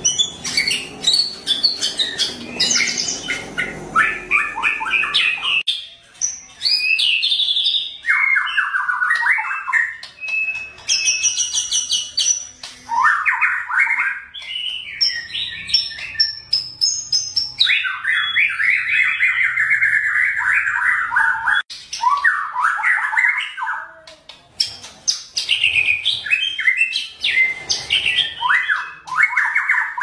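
White-rumped shama (murai batu) singing in full voice ('gacor'): phrase after phrase of fast, rattling runs of repeated notes and rising and falling whistles, with short pauses between phrases.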